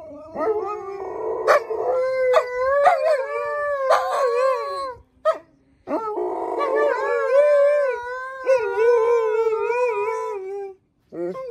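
Alaskan Malamute howling: two long, wavering howls, the second starting about six seconds in. A few sharp clicks break over the first howl.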